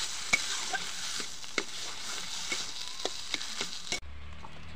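Ground bean and chilli paste sizzling in oil in a kadai while a metal spatula stirs and scrapes it, with sharp clicks of the spatula against the pan every half second or so. About four seconds in the sizzle cuts off, leaving a low steady hum.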